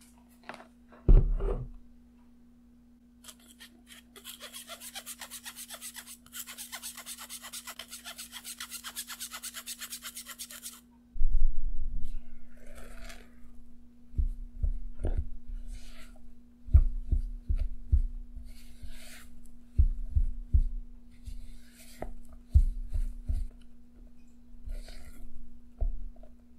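A single thump, then several seconds of fine, rhythmic rasping at about five or six strokes a second as powdered sugar is shaken through a sieve, then a red silicone spatula folding the powder into stiff egg-white meringue in a glass bowl, with soft scrapes and repeated low thuds against the bowl.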